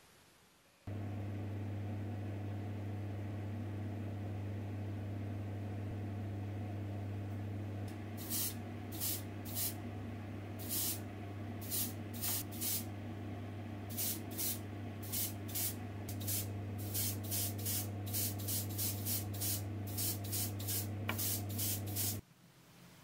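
Steady electric motor hum at the spray booth. From about a third of the way in, an airbrush hisses in short bursts of spray, coming quicker toward the end, as paint is sprayed onto a small die-cast car body. Both stop abruptly just before the end.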